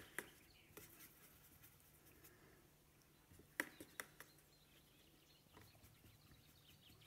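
Near silence with a faint low hum, broken by a few short, sharp clicks, a cluster of three or four about three and a half seconds in: a paintbrush tapping and mixing paint in the wells of a metal watercolour palette.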